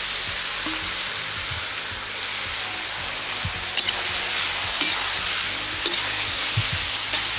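Pork ribs, onion and freshly added sliced carrots sizzling steadily in hot oil in a cast-iron kazan. In the second half a metal spoon stirs them, scraping and clicking a few times against the pot.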